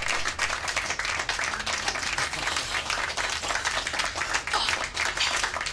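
A small group of people clapping their hands, a dense, irregular patter of claps.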